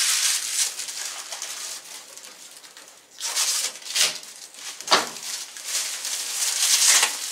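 Plastic protective wrap and tape being pulled off a new microwave's door, rustling and crinkling in bursts, with a sharp snap about five seconds in.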